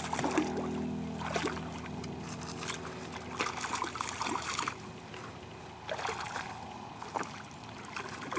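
A hooked fish splashing and thrashing at the water's surface as it is reeled in to the bank, in a series of irregular splashes a second or so apart.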